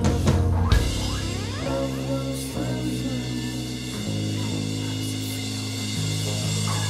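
Background music: held bass notes that change every second or two, with sliding higher notes over them.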